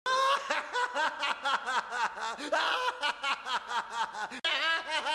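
A voice laughing, a quick run of short, even 'ha' sounds with a brief break about four and a half seconds in.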